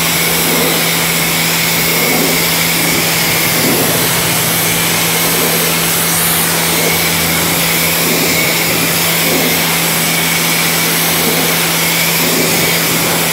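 Pressure washer running steadily, its motor humming under the constant hiss of the water spray as it rinses the car's paint.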